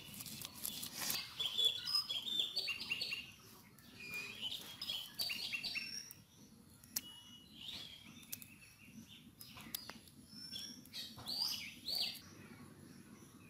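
Birds chirping in many short, high calls, with the rasp of a stone roller grinding on a stone slab (shil-nora) during the first few seconds and a few sharp clicks later on.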